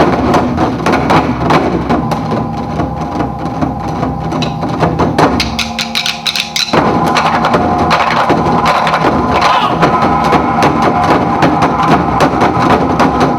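Dance-performance music driven by fast, steady percussion strikes over held tones. About halfway through the low end drops away for a moment, then the full beat comes back.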